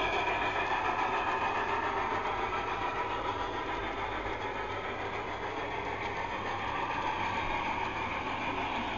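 A Märklin model train running, its small electric motor giving a steady whine that drifts slightly in pitch, over a low hum.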